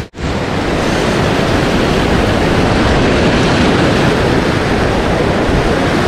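Fast-flowing mountain stream rushing, a loud steady noise of water running high, with a split-second dropout right at the start.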